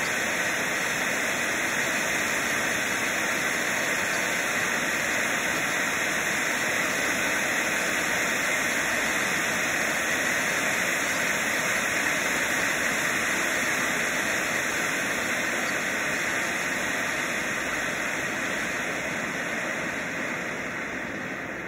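Black Cat Titanium fountain firework jetting sparks with a steady, loud hiss, easing off near the end as the fountain begins to die down.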